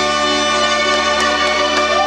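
Live polka band with trumpet holding one long sustained chord at the end of a waltz.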